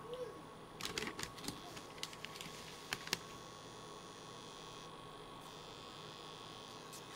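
A run of light clicks and taps in the first few seconds, the loudest two about three seconds in, then a faint steady hiss, as dry instant oats are handled and added to a pot of water. A steady electrical hum runs underneath.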